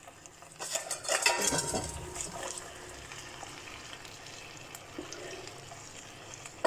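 Cookware clattering and scraping in a frying pan as drained instant ramen noodles are tipped from a metal bowl into hot sauce and vegetables, mostly in the first couple of seconds, followed by a faint steady sizzle.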